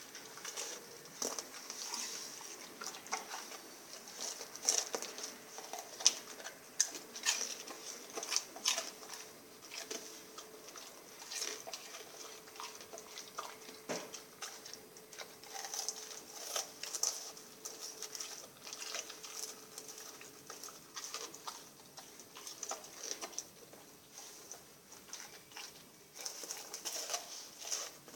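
Rottweiler eating sardines: irregular wet chewing, smacking and licking clicks.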